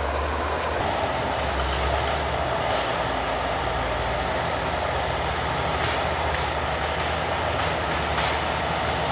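Diesel engine of a forestry harvester running steadily as it works, a constant low drone under an even hiss.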